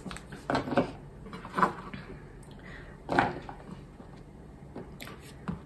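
Cut eggplant cubes being scooped off a plastic cutting board with a kitchen knife and tipped into a bowl: a few separate soft knocks and clatters, spaced out rather than the steady rhythm of chopping.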